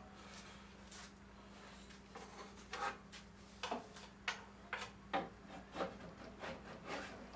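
Light, irregular knocks and clicks of wood being handled and set down, about a dozen over several seconds, with a faint steady hum underneath.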